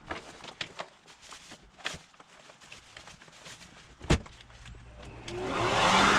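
Scattered light clicks and scuffs of handling, a sharp click about four seconds in, then near the end the Black & Decker BEBLV301 corded electric garden blower-vacuum starts up, its motor and impeller rising in pitch and loudness to full speed.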